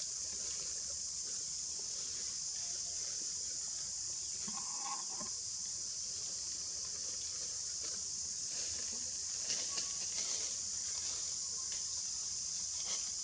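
Steady high-pitched buzz of an insect chorus in tropical forest, unchanging throughout, with a brief faint call about four and a half seconds in and a few light ticks around ten seconds in.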